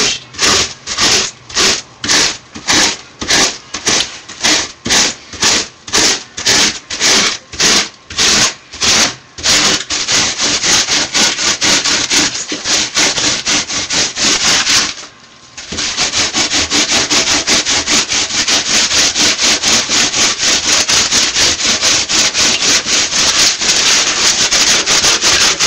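Hand rasp scraping Styrofoam in repeated back-and-forth strokes. The strokes come about two a second for the first ten seconds, then turn quicker and denser, with a short break about fifteen seconds in.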